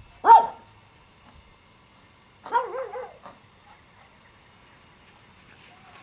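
Pomeranian puppy barking: one high-pitched yap, the loudest sound, then about two seconds later a quick wavering run of yaps.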